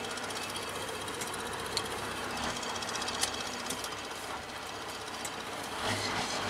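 Scania R500's V8 diesel engine running, heard from inside the cab as a steady rapid pulsing, with a few light clicks over it.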